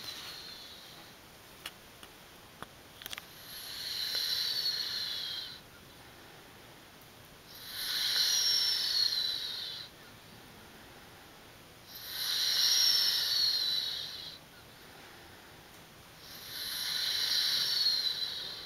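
A woman snoring in her sleep: four long, airy, hissing breaths about four seconds apart, each with a thin whistle that falls in pitch.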